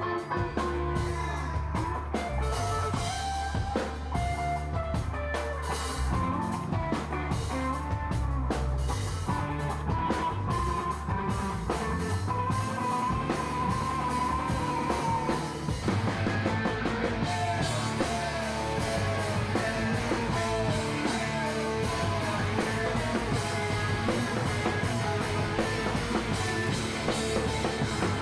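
Rock band playing live on stage: drum kit, bass and guitars, the sound growing fuller about halfway through.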